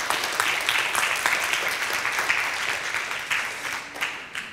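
Congregation applauding: a dense patter of many hands clapping, dying away near the end.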